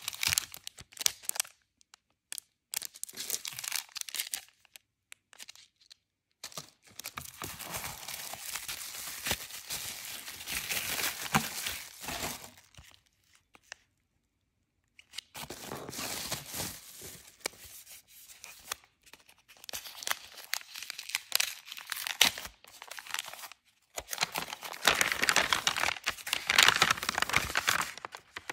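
Clear plastic packaging sleeves crinkling and rustling as they are handled, in stretches broken by short silences. Near the end comes a louder stretch of paper crinkling from a white paper bag being handled.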